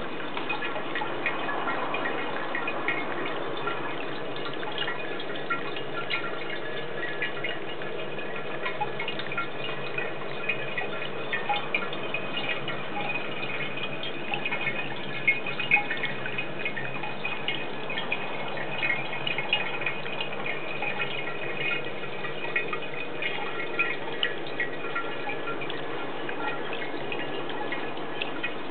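Water trickling down the steel column of a small tabletop fountain and dripping into its basin: a steady trickle with many small bright plinks.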